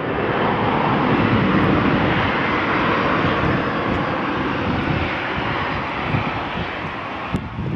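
Aircraft passing close by: its engine noise swells in the first second, stays loud for a few seconds, then slowly fades.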